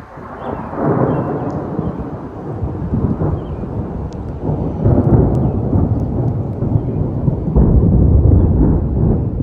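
Loud thunder from a nearby lightning strike, rolling and rumbling in waves, with its heaviest low rumble near the end.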